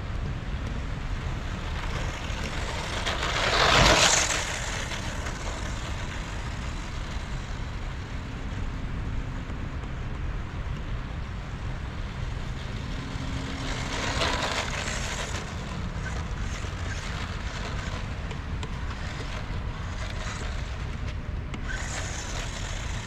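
Small electric RC truck with a brushed motor driving over a dirt field, with steady wind rumble on the microphone. There is a louder rush as it passes close about four seconds in, and a smaller one around fourteen seconds.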